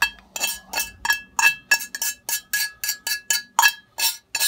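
A metal fork scraping and knocking against a cast iron skillet to get the hash browns out: about four sharp metallic clinks a second, each with a short ringing.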